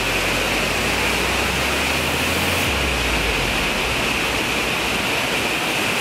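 An underground waterfall inside a limestone cave: a steady, unbroken rush of falling water.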